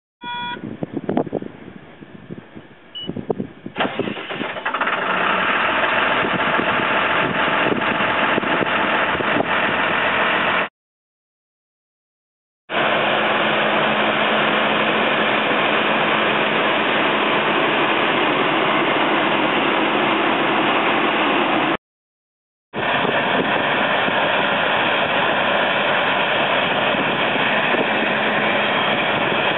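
Caterpillar D6 crawler dozer working soil: its diesel engine runs loud and steady, with a few irregular knocks in the first seconds and a brief beep right at the start. The sound drops out twice, for about two seconds and then one second.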